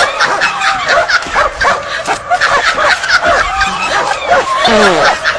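Dog barking and yipping rapidly, the calls coming one after another without a break.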